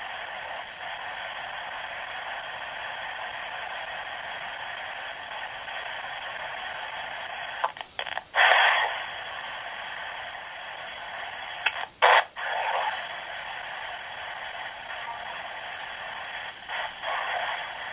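S Box spirit-box white noise hissing steadily, cut by short louder bursts and brief dropouts about 8 and 12 seconds in and again near the end.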